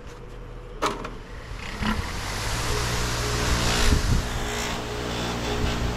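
A 1 HP dual-speed bench buffing motor switched on with a click about a second in, then spinning its buffing wheel up to speed with a steady hum and whir that builds over the next two seconds and holds.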